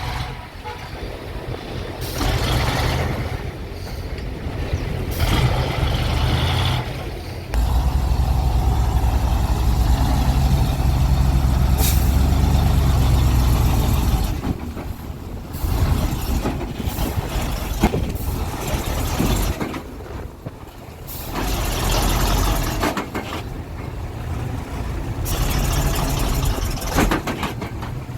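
Heavy diesel truck and excavator engines working, rising and falling in stretches, with a long loud spell under load in the middle.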